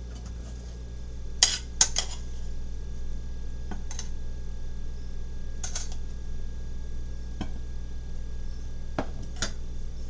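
Metal utensil clinking and scraping against a stainless steel pot while green beans are served out of it: a quick cluster of three sharp clinks about a second and a half in, then a few scattered ones, over a steady low hum.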